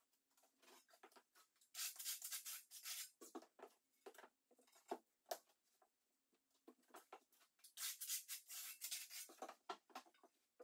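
Scraping and rubbing of floor tiles being set and slid into thinset mortar, with short scuffs and taps between. There are two longer, louder scraping spells, one about two seconds in and one about eight seconds in.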